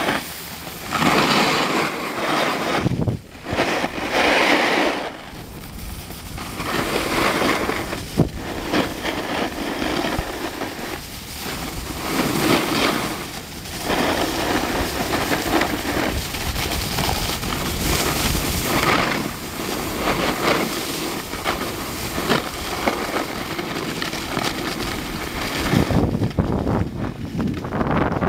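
Wind rushing over the microphone mixed with the scrape of a snowboard sliding over snow, a rough, steady noise that swells and drops in gusts.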